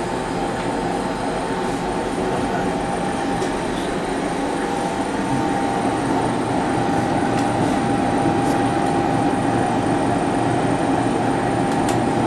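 Vertical ice-cream batch freezer running steadily with a constant whine, its dasher churning the liquid mix as it begins freezing. The machine is just after start-up.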